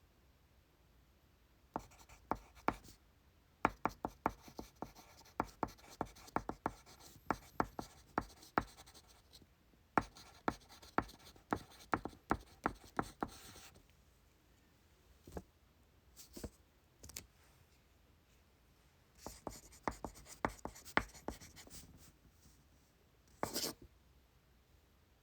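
Writing on paper at an exam desk: runs of quick scratching strokes and taps, in several bursts with short pauses between. Near the end comes one brief rustle of paper.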